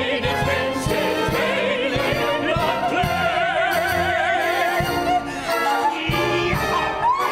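Singers performing a Broadway show tune with a full symphony orchestra. A single voice holds a long note with wide vibrato for several seconds over the orchestral accompaniment, and the music thins briefly about two-thirds of the way through.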